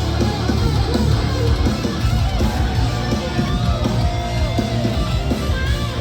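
Metalcore band playing live at full volume: distorted electric guitars with bending, sliding notes over heavy bass and drums.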